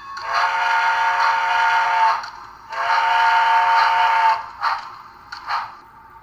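Sound decoder of an HO-scale Bachmann Spectrum 2-10-0 Decapod steam locomotive playing its steam whistle through the model's small speaker: two long, steady chime blasts, each about a second and a half to two seconds, followed by a few short bursts of noise.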